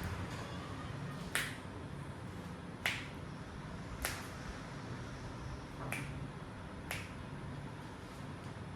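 Five sharp knuckle cracks from a person's finger joints being pulled and cracked, spaced about one to two seconds apart.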